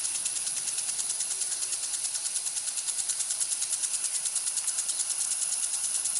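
Irrigation sprinkler spraying water: a steady hiss with a fast, even pulsing running through it.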